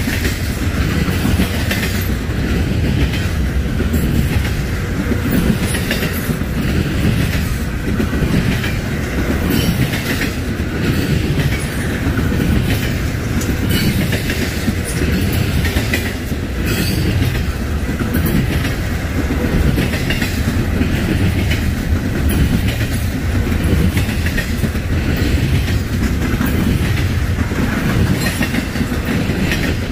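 Freight train cars rolling past close by: a steady rumble of steel wheels on rail, with frequent sharp clicks as the wheels cross rail joints.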